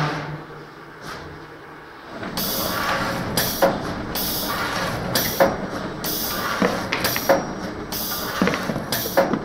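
Paper-core cutting machine cycling. A low hum in the first two seconds gives way to short hisses of air, repeating with sharp clicks about once a second.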